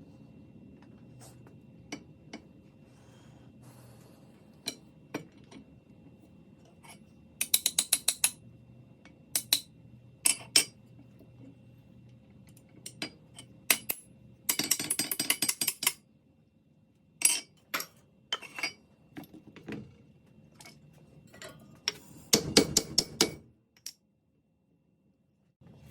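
Sharp metallic clicks and short bursts of rapid rattling from the steel parts of a pipe wrench being handled and worked, with the loudest rattles about a third of the way in, in the middle and near the end.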